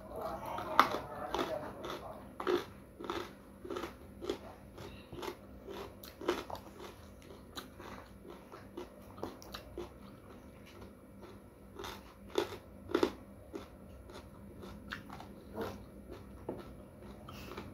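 Close-up chewing of a hand-fed mouthful of rice with side dishes: wet mouth clicks and smacks come irregularly, about every half second. The loudest ones come about a second in and again about twelve to thirteen seconds in.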